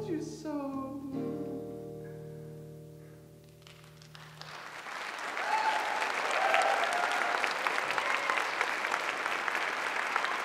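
Acoustic guitar playing a final chord that rings out and dies away, after the last sung note fades. About four and a half seconds in, an audience starts applauding, and the applause builds and holds.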